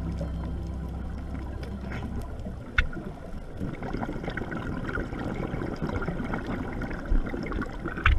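Underwater sound picked up through a dive camera's housing: a low rumble that fades over the first few seconds, then bubbling with scattered sharp clicks, and a burst of louder clicks at the very end.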